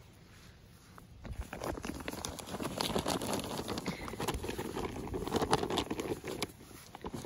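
Rustling and scuffling of two Sheltie puppies tussling in the grass around a plastic bag, full of small clicks and crackles. It starts about a second in and eases off near the end.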